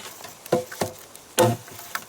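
Dry firewood knocking and clattering: about four short, sharp woody knocks in two seconds, a couple of them with a brief hollow ring.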